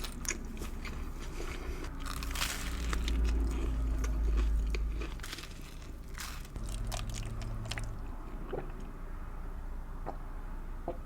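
A person biting into and chewing a tuna sandwich close to the microphone. There are louder crunchy bites about two to three seconds in and again around six seconds, then softer chewing clicks.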